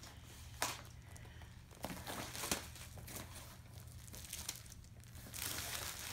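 Clear plastic packaging of a diamond painting kit being handled: irregular crinkling and rustling, with a sharp snap about half a second in and a longer, denser rustle near the end.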